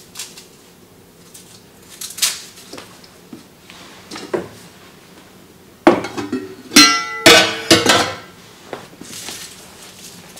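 Light knocks of vegetables and a wooden cutting board on a kitchen counter. About six seconds in comes a loud run of metal clanks and scrapes with brief ringing as the lid of a stainless-steel container, used as a compost bin, is opened and handled.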